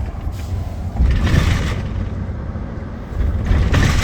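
Steady low rumble of vehicle noise, with two louder swells of noise, one about a second in and one near the end.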